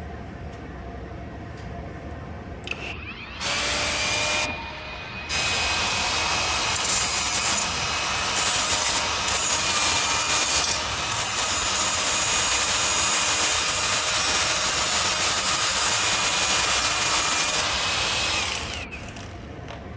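A handheld power tool spins up with a rising whine, runs in a short bout and then a long steady one of about twelve seconds, and winds down with a falling whine near the end.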